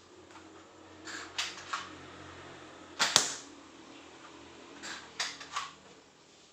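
Nerf foam-dart blaster being worked and fired: a few plastic clacks about a second in, one sharp shot about three seconds in, then more clacks around five seconds in.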